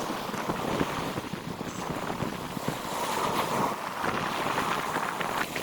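Sea waves washing and splashing against shore rocks, with wind on the microphone.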